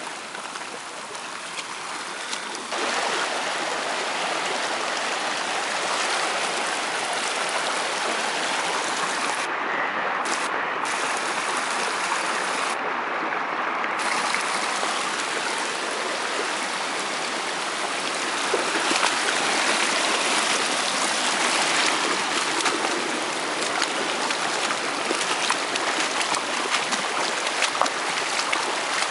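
Floodwater rushing in a broad sheet over the forest floor, a steady rushing that gets louder about three seconds in.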